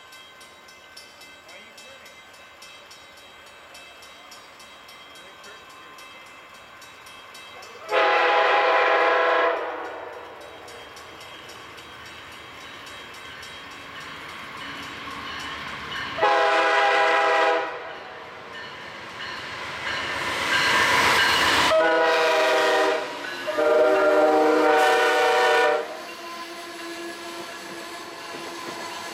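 Amtrak passenger train's air horn sounding a sequence of chime blasts as the train approaches: two long blasts several seconds apart, a rising rush of train noise, then a short blast and a long one. The steady rumble and rail noise of the passenger cars passing close by follows.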